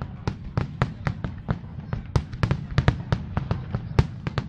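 Aerial fireworks shells launching and bursting in a rapid, irregular string of sharp bangs, about four or five a second, over a steady low rumble.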